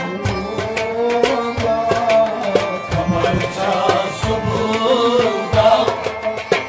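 Kashmiri folk ensemble playing: a harmonium melody over a steady hand-drum beat, with a string instrument alongside.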